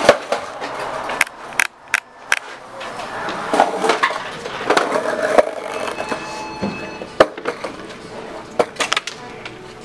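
Knocks and clatter of skateboards being carried through a door and into a restaurant dining room, over background voices, with a faint steady tone about six seconds in.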